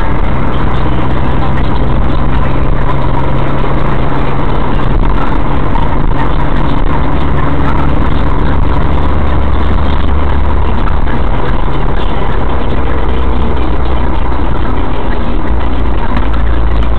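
Car engine and road noise inside the cabin, picked up by a dashcam's microphone while driving, loud and steady. The engine's hum shifts lower about halfway through.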